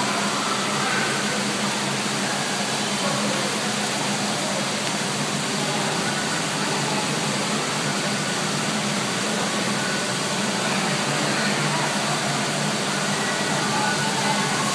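Steady rush of water pouring out of a water slide's tube outlet and splashing into the pool.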